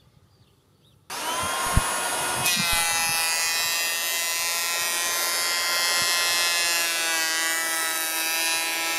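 Popoman 18V twin-blade cordless planer starting about a second in with a rising whine. From about two and a half seconds it is cutting along a wooden beam at 0.6 mm depth: a steady high whine over the rasp of shavings.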